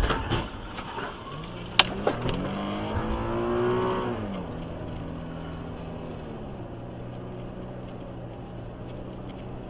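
Car engine heard from inside the cabin, accelerating with its note rising for about three seconds, then dropping and settling into a steady cruising hum. A single sharp click about two seconds in.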